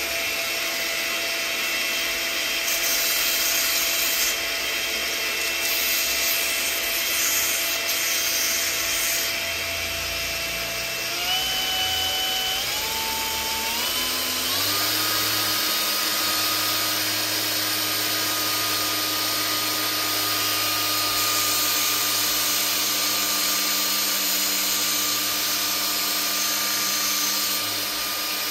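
Hilti AG4S-A22 cordless angle grinder, converted into a handheld belt sander, running steadily with no workpiece on the belt. Its motor whine steps up in pitch four times about halfway through, then holds at the higher speed.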